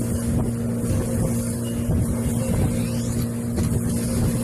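A small boat's motor running steadily under way, a constant droning hum over rushing noise.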